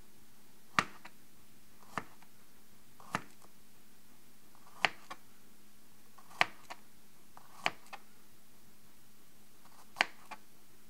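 Kitchen knife slicing garlic cloves on a plastic cutting board: about seven sharp knocks of the blade striking the board, one every second or two, a few followed by a lighter tap.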